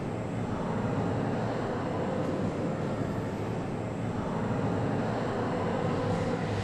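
Steady low rumble with a light hiss over it: continuous background noise, with no distinct events.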